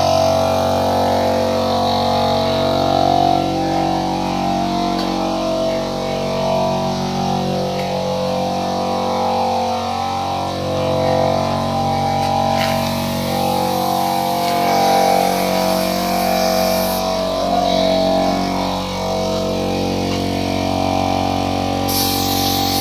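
Background music with a plucked-string, guitar-like sound. Near the end a paint spray gun's hiss starts.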